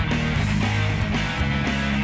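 Background rock music with guitar and a steady bass line.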